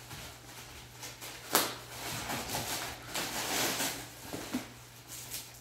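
Crumpled newspaper packing crinkling and rustling as it is pulled off a rifle, with a single sharp knock about one and a half seconds in.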